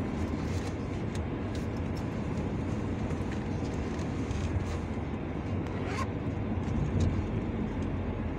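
Steady road and engine noise inside the cabin of a moving car, with a few faint clicks.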